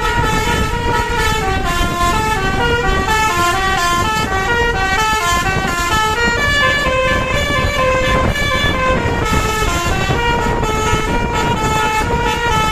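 Bus telolet horn, a Basuri multi-tone air horn, playing a fast tune of short stepped notes without a break, over a low rumble.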